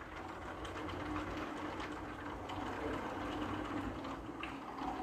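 Glass sliding-door leaves (8 mm glass) rolling along their track as they are pushed open, a steady rumble with a few light clicks as the leaves knock together and catch one another.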